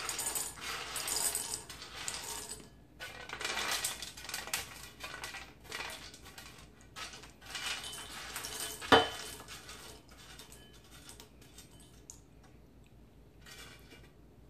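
Hard, dry oven-roasted chickpeas rattling across a metal sheet pan and clicking into a bowl as they are swept off by hand, a dense patter of small clicks that thins out later, with one louder knock about nine seconds in. The hard clicking is the sign that the roasted chickpeas are crunchy.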